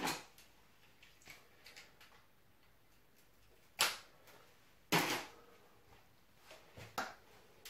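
A few sharp knocks and clicks from things being handled, scattered over quiet room tone. The loudest come about four and five seconds in.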